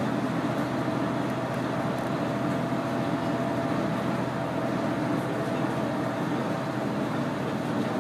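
KiHa 100 diesel railcar under way, heard from inside the cabin: a steady drone of the diesel engine mixed with wheel-on-rail running noise.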